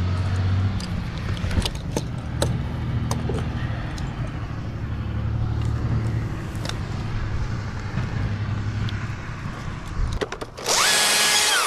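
Battery chainsaw revved briefly near the end: a sudden high whine that falls in pitch as it winds down. Before it, a low engine rumble from a vehicle on the street below, with scattered clicks and scrapes of climbing gear and bark.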